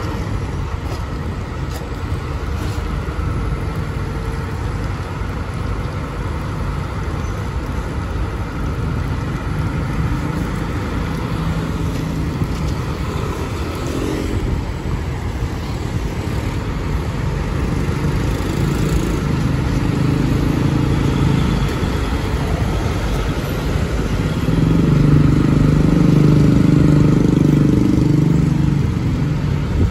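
Diesel engine of a Kobelco crawler excavator running, mixed with passing street traffic and motorcycles. A heavier engine note swells and gets louder for the last few seconds.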